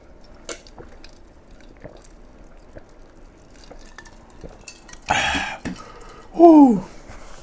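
A man drinking from a large glass goblet, with faint swallowing clicks, then a breathy exhale about five seconds in and a loud vocal "ahh" that falls in pitch.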